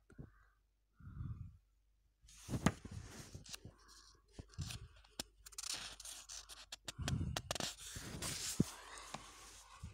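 Pages of a paper comic book rustling and scraping as they are handled, with irregular sharp clicks and crinkles.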